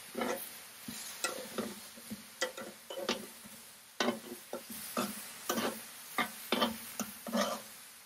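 Metal tongs clicking and scraping on a cast-iron griddle pan as grilled pineapple slices are picked up and turned: a run of irregular sharp clicks and knocks over a faint sizzle from the fruit cooking on the hot pan.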